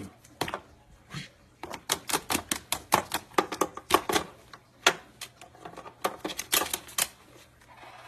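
Rapid, irregular plastic clicking and tapping, several clicks a second, as a white-bellied caique works a game-console cable plug with its beak and knocks it about.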